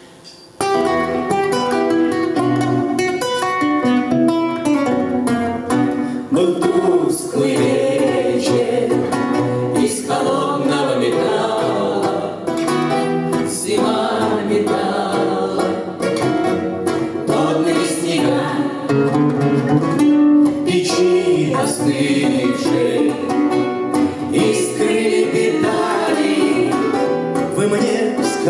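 Live song with two acoustic guitars playing and voices singing, starting abruptly about half a second in.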